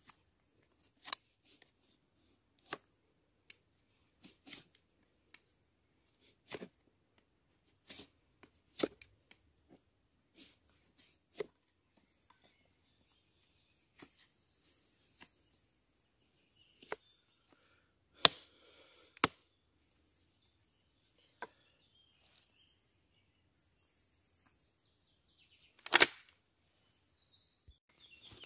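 A blade chopping into wood: single sharp strikes at an irregular pace, roughly one every one to two seconds, with two much louder strokes in the second half.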